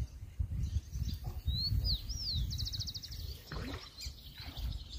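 Bird calls: a couple of whistled notes sliding up and down, then a quick trill of about ten notes, over an uneven low rumble.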